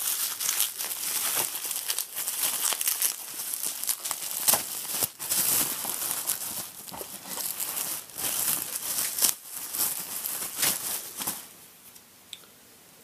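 Plastic bubble wrap crinkling and crackling as it is handled and pulled off a boxed electronic part, in quick irregular rustles and snaps; it stops near the end.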